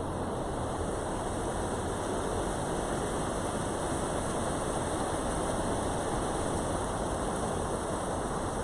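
Steady rushing noise with a low rumble, unbroken and even in level.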